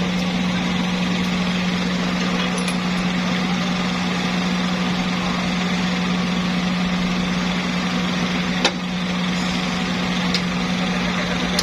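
Engine running steadily at idle with a constant low hum, and one sharp knock about nine seconds in.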